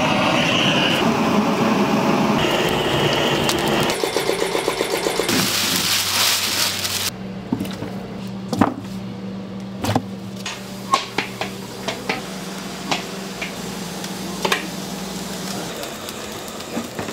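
A handheld gas torch hissing steadily as it lights firewood, for roughly the first seven seconds. After that, a steady low hum with scattered sharp clicks and knocks of handling.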